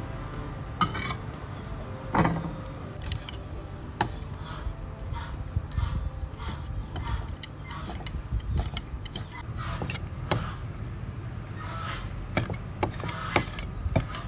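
Steel cleaver chopping raw beef on a wooden chopping block: irregular knocks of the blade on the wood, with some strokes sharper than others. A steady low rumble runs underneath.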